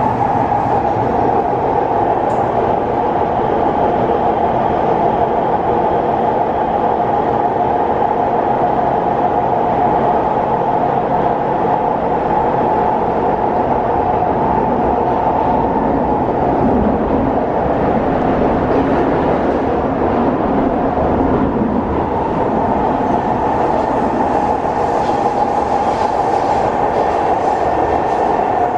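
SMRT C151 metro train (set 089/090) running at speed through a tunnel, heard from inside the car: a loud, steady rumble of wheels and motors. It carries the noise of a loud flat wheel, a wheel with a flat spot worn into its tread.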